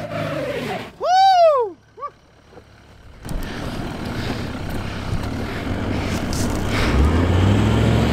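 Toyota LandCruiser 200 series V8 engine pulling under load as the four-wheel drive climbs a steep rutted dirt track, with a shouted whoop about a second in. The sound drops away briefly, then the engine comes back steady and grows louder toward the end.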